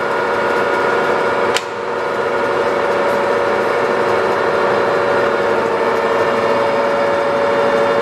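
TOS SN50c lathe running under power, its geared headstock giving a steady whine. A sharp click about a second and a half in, after which the sound dips and builds back up.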